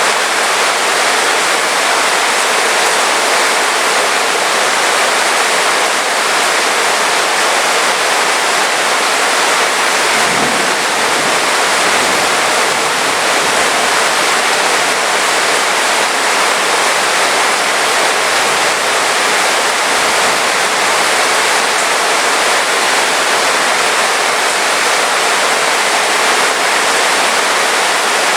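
Heavy rain falling in a dense, steady hiss. A faint low rumble comes in briefly about ten seconds in.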